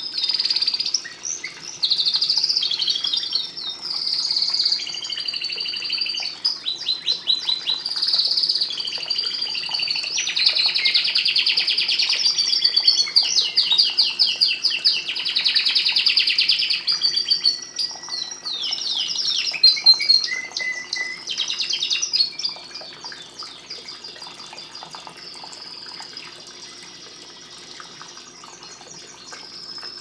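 Domestic canary singing a long song of rapid trills and rolls, fast repeated notes at a high pitch. The song stops about three-quarters of the way through.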